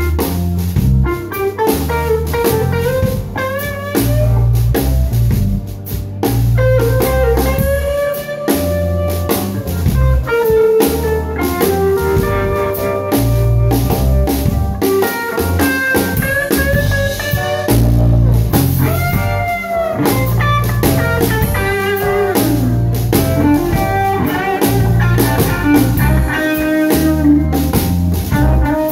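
Live blues band playing: an electric guitar plays a lead line with bent, sliding notes over a drum kit and a bass line.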